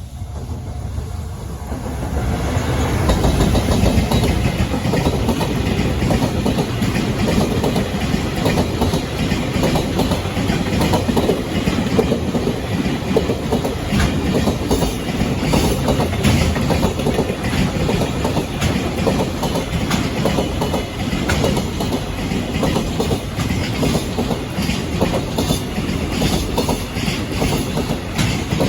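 JR Freight train passing close by, its wagon wheels clacking over the rail joints in a long steady run of clicks. The sound builds over the first few seconds as the train comes up.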